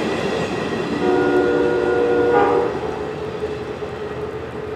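A receding Amtrak passenger train: the rumble of its wheels fades as it pulls away. About a second in, the locomotive's multi-chime air horn sounds one blast of about a second and a half, distant. A fainter steady horn tone follows to the end.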